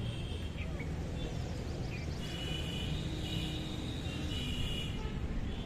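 Outdoor ambience: a steady low rumble with stretches of high-pitched chirping over it.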